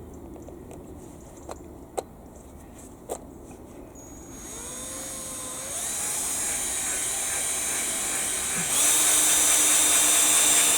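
Power drill running into wood planks, a steady high-pitched whine that starts about four seconds in, gets louder in two steps, and is loudest near the end. A few light knocks come before it.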